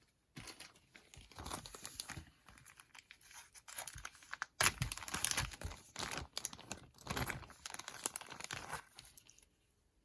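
Packaging crinkling and tearing in irregular rustles as a piece of jewelry is unwrapped by hand, dying away near the end.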